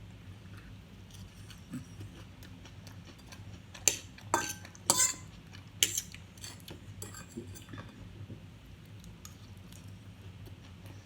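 Cutlery clinking against a plate during a meal: a cluster of about five sharp clinks in the middle, over a low steady hum.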